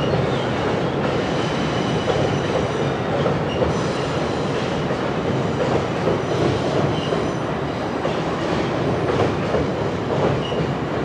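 Train rolling along the track: a steady rumble of wheels on rail, with brief faint high wheel squeals now and then.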